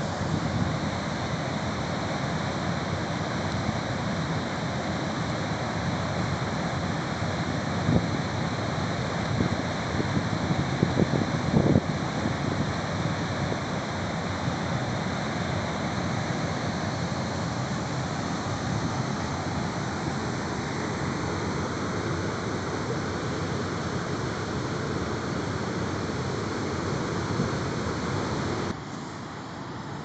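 High Force waterfall on the River Tees pouring into its plunge pool, a steady rushing roar of water with a few brief low thumps about eight to twelve seconds in. Near the end it cuts abruptly to the quieter rush of water at Low Force.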